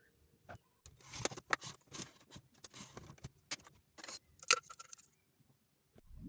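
Scattered clicks, knocks and light rattles of hands handling a small electronic device during reassembly, with the sharpest knock about four and a half seconds in.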